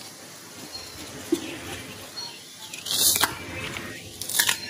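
Hands handling and stripping water lily stems among water spinach in a plastic colander: a soft rustle of stalks and leaves, with two short, louder crisp bursts about three and four seconds in.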